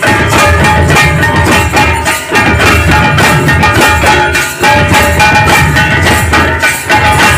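Loud folk music for a Karam dance: a barrel drum beaten with a stick keeps a steady, dense rhythm under steady held melodic tones.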